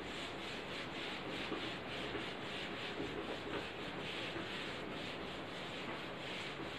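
Whiteboard eraser wiping a marker-covered whiteboard in quick, repeated back-and-forth rubbing strokes, several a second.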